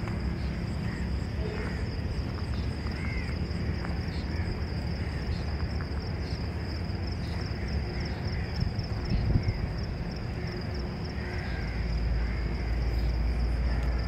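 Insects trilling steadily on a high note with an evenly repeating pulse, with a few short bird chirps, over a low rumble that grows louder near the end.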